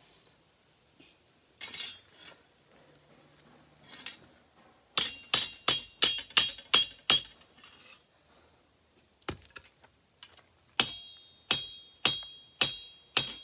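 Light hammer taps on steel, each with a bright metallic ring. A quick run of about seven taps comes about five seconds in, and after a pause about six more, spaced about half a second apart.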